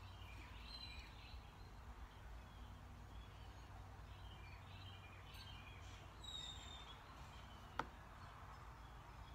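Near silence: faint room tone with a low hum and a few faint high chirps, and a single sharp click about eight seconds in.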